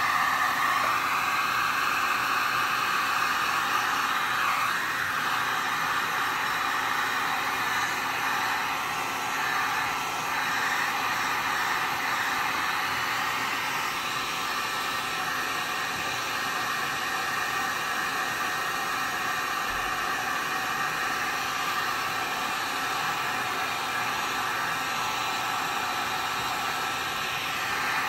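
Electric heat gun blowing hot air steadily, an even fan-and-airflow hiss, as it shrinks heat-shrink tubing over a cable; a little louder in the first few seconds.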